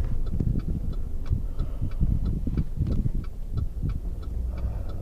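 Car turn-signal indicator clicking steadily, about three clicks a second, over the low rumble of the car's engine.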